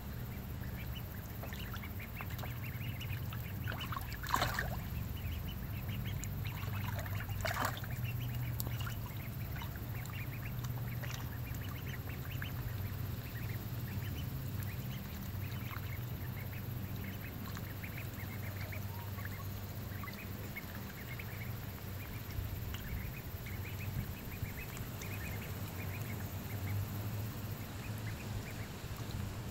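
Ducks quacking: short calls scattered throughout, with two louder ones about four and seven seconds in, over a steady low hum.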